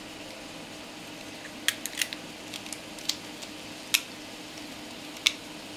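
Several light, sharp clicks and taps from lobster shell pieces and utensils being handled at the kitchen counter, over a steady low kitchen hum.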